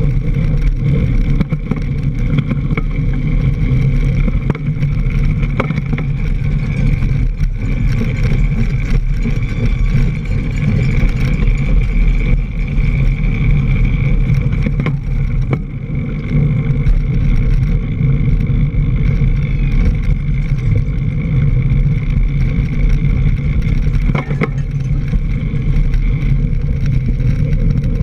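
Continuous rumble of a mountain bike riding a leaf-covered dirt trail, picked up by a camera mounted on the bike: tyre and drivetrain noise mixed with wind on the microphone. Short knocks come through here and there as the bike hits bumps.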